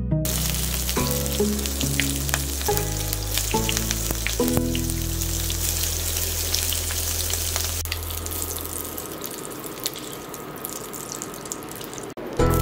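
Raw shrimp sizzling as they fry in hot oil in a nonstick wok. The hiss starts just as they go into the oil and cuts out briefly near the end.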